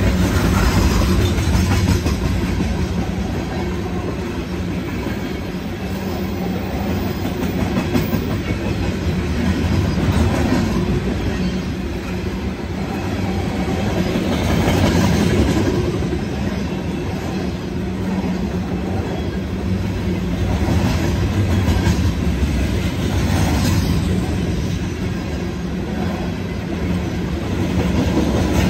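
Freight train of open-top hopper cars rolling past close by: the steady rumble and clatter of steel wheels on the rails, growing louder and softer in slow waves as the cars go by.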